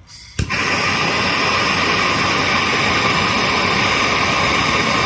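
A soldering torch lit with a click about half a second in, then burning with a loud, steady hiss as it heats a copper pipe joint for soldering.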